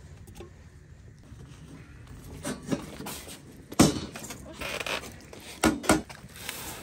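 Metal tongs clanking against stones and a metal stove as hot stones for khorkhog are handled. The clanks and knocks are scattered, and the loudest comes a little before four seconds in.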